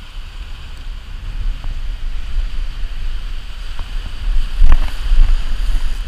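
Wind buffeting the camera's microphone in a heavy low rumble, over the hiss of small waves breaking on the beach, with a few short knocks a little past the middle.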